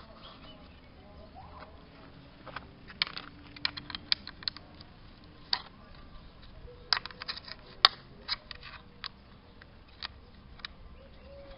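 The wooden telescoping ladder of a model fire truck being pulled out by hand, its sections giving a run of sharp, irregular wooden clicks and clacks. The clicks start about two and a half seconds in, bunch together in the middle and die away near the end.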